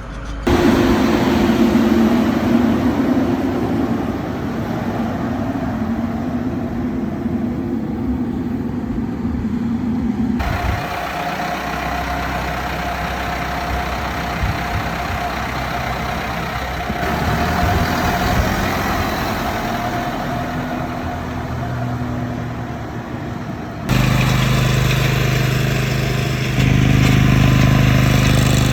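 Tractor engine running steadily, heard in several edited clips: the sound changes abruptly about 10 seconds in and again about 24 seconds in.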